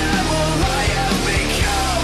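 Rock song playing: a singing voice over drums with regular beats.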